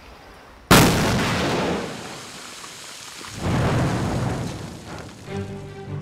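Rock-blasting explosion on an excavated hillside: a sudden loud blast about a second in whose rumble dies away, then a second rolling surge of rumble about three and a half seconds in. Music comes in near the end.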